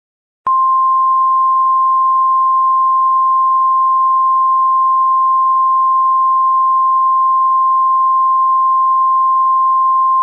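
Emergency Alert System attention tone: one steady high-pitched tone that begins abruptly about half a second in and holds unchanged for about ten seconds, signalling that an alert message follows.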